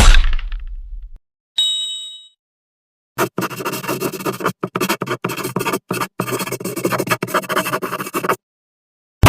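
A run of separate cartoon sound effects: a sudden thud that dies away, a short bright ding about a second and a half in, then about five seconds of choppy scratching that keeps stopping and starting.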